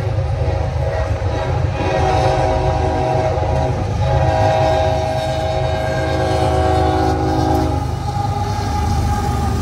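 Locomotive air horn sounding a steady chord in two blasts: a shorter one starting a couple of seconds in, then a long one held about four seconds. Under it runs the train's steady low rumble.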